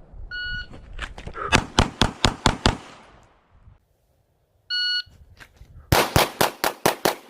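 A shot timer beeps, then a Glock 45 9mm pistol fires about six rapid shots in a bill drill. A second timer beep about four and a half seconds in starts another quick string of about six shots.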